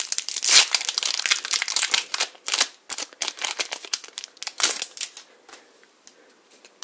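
Foil wrapper of a Magic: The Gathering booster pack crinkling as it is torn open. The dense crackling dies away about five seconds in.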